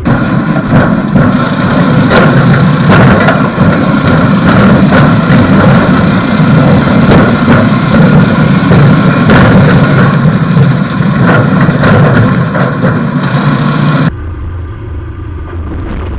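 Predator 212 single-cylinder four-stroke engine in a VW Baja Bug running hard as the car drives over rough ground, with occasional knocks from the body over bumps. The sound drops sharply in level about fourteen seconds in.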